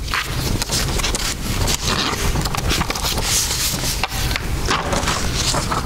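Loud rustling and rubbing close to the pulpit microphone, full of small crackles and knocks, with no let-up.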